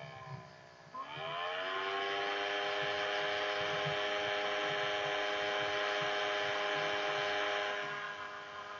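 A small electric motor whirring. It dips low at first, spins back up about a second in, runs at a steady pitch for several seconds, then tails off near the end.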